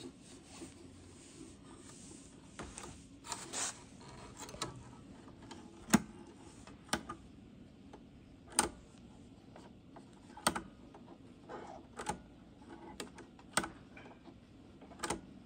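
Light clicks and taps of hands threading the upper thread on a Juki HZL-009 sewing machine, its plastic parts and thread guides being handled. A soft rustle comes about three seconds in, then about seven short sharp clicks, one every second or two.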